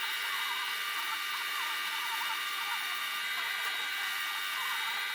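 Electric drill running with a steady high whine, boring holes in wood with a forstner bit.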